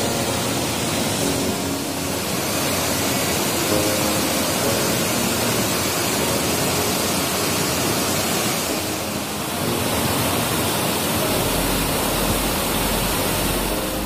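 Loud, steady rushing noise with faint background music under it; a deep low rumble joins about eleven seconds in.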